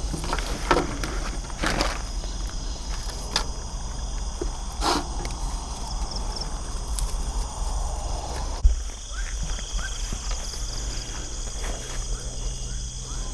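Steady chorus of night insects, with rustling, small handling clicks and footsteps through grass, and one sharp knock about two-thirds of the way through.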